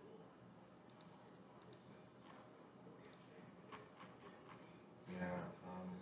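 Faint, scattered computer mouse clicks against quiet room tone. About five seconds in, a brief louder pitched sound in two short parts.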